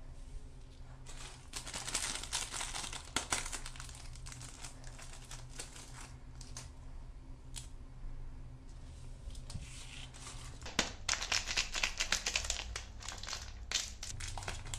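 Plastic candy-bar wrappers crinkling and tearing as they are pulled open by hand, in two bouts of crackling: one about two seconds in and a busier one from about eleven seconds to near the end.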